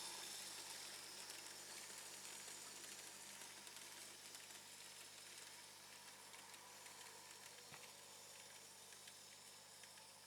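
Near silence: a faint hiss fading away, with a few faint ticks.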